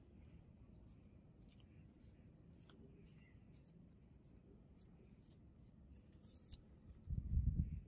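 Faint, scattered small clicks and ticks from a corroded metal sunglasses frame being handled in gloved hands, its thin wire temple arms and hinges moving. A brief low rumble about seven seconds in is the loudest sound.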